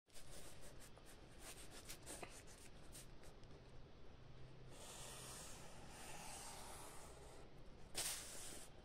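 Handwriting on paper: faint short scratches of the writing tip, with a longer rubbing stretch midway and a louder brief scrape near the end.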